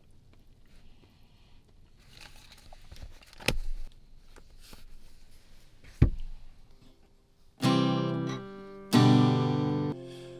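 Two sharp knocks a couple of seconds apart over a quiet background, then strummed acoustic guitar chords start near the end, opening a song.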